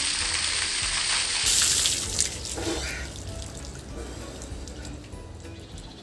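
A bucket of cold water poured over a person, a loud rush of splashing water that fades away about three seconds in, leaving faint trickling.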